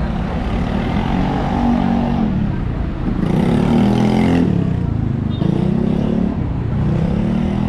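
City street traffic: motor vehicle engines revving, rising and falling in pitch several times, with a brief hiss a little over three seconds in.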